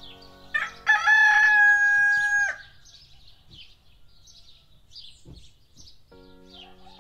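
A rooster crows once, loud, starting about half a second in: a short first note, then a long held note that breaks off after about two seconds. Small birds chirp faintly throughout.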